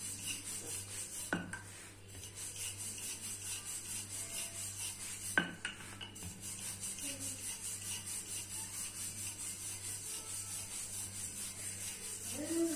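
A wooden rolling pin rolling out a soft stuffed potato paratha on a rolling board, making a rhythmic back-and-forth rubbing. Two sharp knocks come about a second and a half in and again near the middle.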